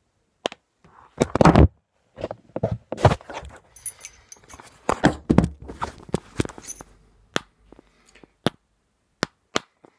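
Handling noise close to the microphone as the phone is moved and gripped: a loud rustle, knocks and scrapes, then a string of sharp, separate taps in the second half, which may be the metal keyring tool tapping against the phone.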